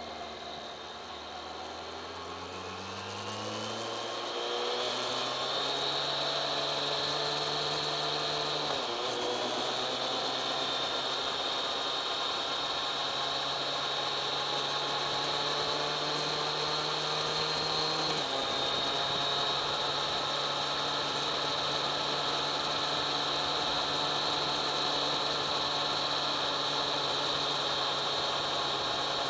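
Kawasaki ZX-10R's inline-four engine pulling up through the revs for the first few seconds, then running at a steady cruise. The engine note breaks briefly about nine seconds in and again around eighteen seconds, with a steady high whine over the top throughout.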